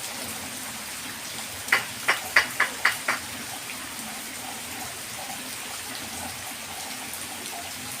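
Steady rain falling. About two seconds in comes a quick run of six short, sharp sounds, louder than the rain.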